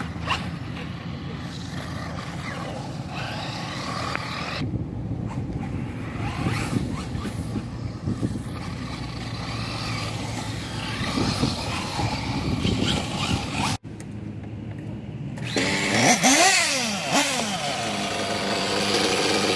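RC buggy running around a dirt track. After a cut, a nitro RC buggy's small engine runs and revs in rising and falling sweeps.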